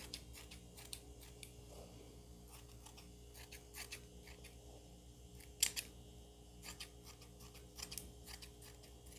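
Scissors snipping through embroidered net fabric in short, irregular cuts, faint, with one louder snip a little past halfway through.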